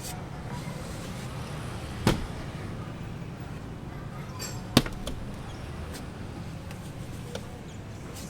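Two loud, sharp knocks, about two and five seconds in, with a few lighter clicks, over a steady low rumble.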